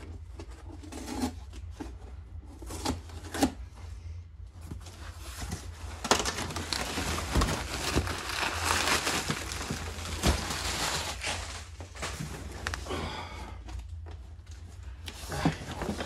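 Plastic wrap crinkling and rustling as it is pulled off a cardboard box, loudest and densest in the middle stretch, with a few knocks of the box against the bench in the first few seconds.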